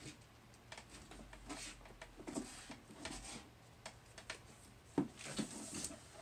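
Faint handling noises: scattered, irregular light clicks and taps, a little louder about five seconds in.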